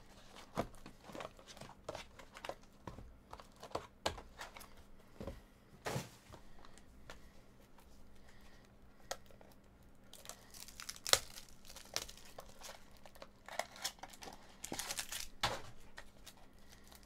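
A cardboard trading-card mini-box being handled and its silver foil wrapping torn and crinkled open, with scattered taps and clicks. Louder bursts of crinkling come about 11 and 15 seconds in.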